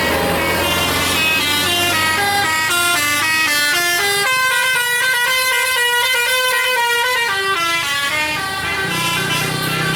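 A bus's 'basuri' telolet horn, a multi-tone air horn with a tune module, playing a quick melody of stepped notes, about four notes a second. A low steady hum sits under it at the start and near the end.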